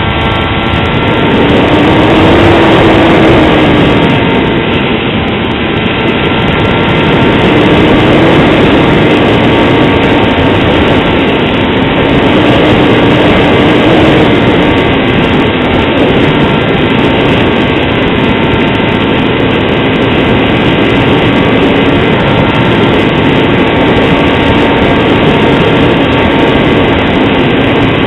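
Motor and propeller of a foam RC plane running steadily in flight, heard through a camera on board the plane, with heavy wind rush on the microphone. The motor's pitch rises and falls slightly a few times.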